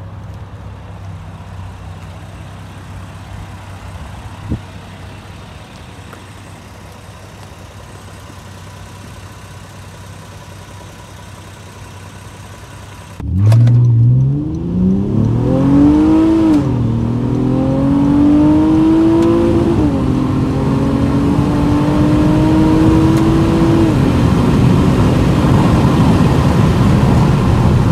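Honda Accord's 3.5-litre V6 idling with a steady low hum. About halfway through, heard from inside the cabin, it launches at full throttle, the revs climbing and then dropping back with each upshift, three or four times. The driver says the tyres were slipping on the cold, damp road at the launch.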